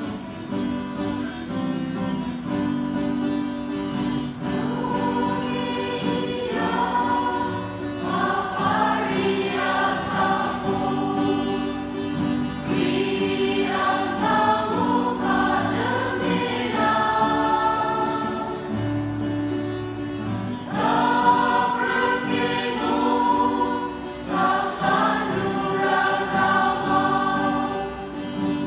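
Mixed choir singing a hymn in the Garo language with instrumental accompaniment. The accompaniment plays alone at first and the voices come in about five seconds in.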